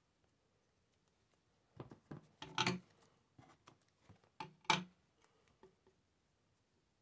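Craft scissors snipping double-sided foam tape: a few short, sharp snips and clicks in two clusters, about two seconds and about four and a half seconds in, with light handling rustle between.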